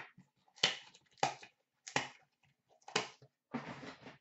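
Hard plastic card cases and the cardboard box being handled: a series of about five sharp taps and clicks, then a short rustle near the end.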